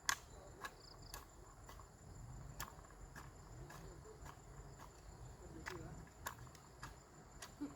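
Faint steady high-pitched insect drone, with scattered light clicks and taps, the sharpest just after the start.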